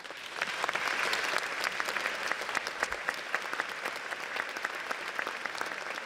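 Concert hall audience applauding, a dense steady patter of many hands clapping that swells just after the start.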